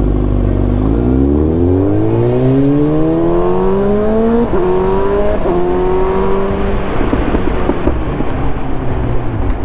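Suzuki GSX-S750 inline-four with a decat exhaust accelerating away, its note rising steadily, then dipping briefly about four and a half seconds in as it shifts up, the quickshifter just fitted, before pulling on at a steadier pitch.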